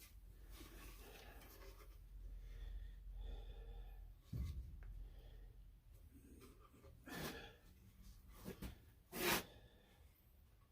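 Quiet workshop handling noises as wooden jig pieces are worked by hand: a light knock about four seconds in, then a few short rustles, over a faint low hum.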